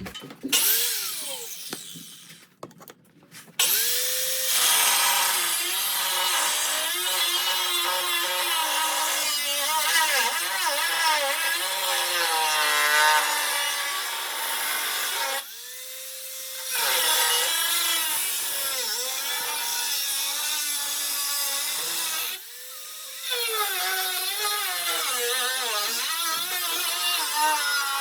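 A power cutting tool cutting through the Jeep JKU's cab body panels. The motor's pitch dips under load and recovers, and the tool stops briefly twice and spins back up.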